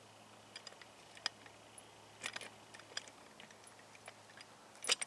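Scattered faint clicks and light taps of small metal parts being handled while a mini milling machine is set up, with a louder cluster of clicks near the end.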